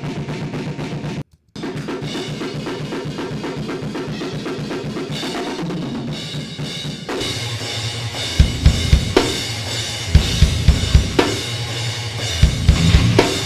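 Raw, unmixed deathcore drums and distorted guitar riffing from a live band recording, heard through the distorted drum room mic. Playback cuts out briefly about a second in. From about eight seconds in, heavy kick drum hits dominate.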